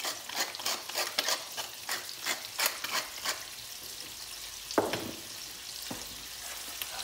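Minced pork and veal sizzling in olive oil in a heavy-bottomed pan, while a hand salt or pepper grinder is turned over it in a quick run of crackly clicks for the first few seconds. A single knock comes just before the five-second mark, then only the sizzle goes on.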